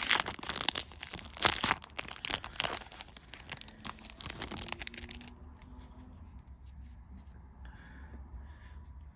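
Trading card booster pack wrapper being torn open and crinkled: a dense run of crackling and tearing for about five seconds, then it goes much quieter.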